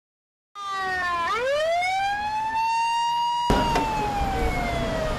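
Ambulance siren wailing, starting about half a second in. Its pitch dips, climbs, then slowly falls. A little over halfway through, street traffic noise comes in under it.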